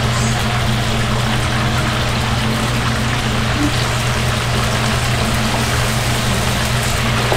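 Chicken gizzards deep-frying in a large wok of oil: a steady bubbling sizzle, with a steady low hum underneath.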